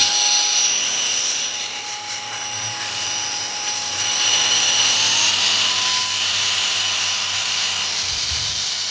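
A small power tool running steadily with a high whine over a hiss, starting and stopping abruptly.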